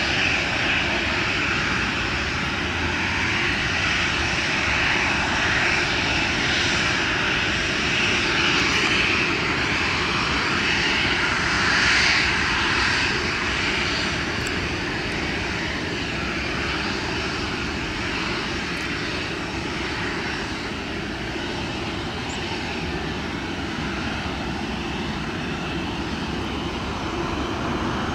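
Twin jet engines of a Boeing 737 running at high power for take-off, heard as a steady loud rush that swells to its loudest about twelve seconds in.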